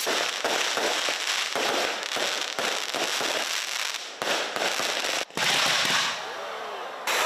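Handmade set-piece fireworks (shikake hanabi) spraying fountains of sparks, with a dense, steady hissing crackle that breaks off suddenly a few times for a moment.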